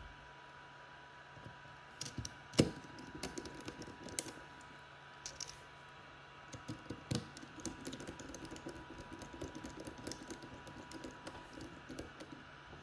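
Small Phillips screws being driven into a DJI Mini 2 drone's plastic shell with a precision screwdriver: scattered sharp clicks and taps of tool and plastic handling, the loudest about two and a half seconds in, then a run of fine rapid ticking through the second half.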